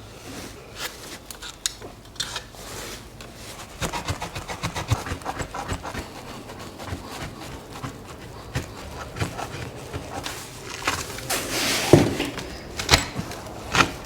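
A run of irregular clicks, taps and knocks with rubbing and scraping, the loudest knock about twelve seconds in.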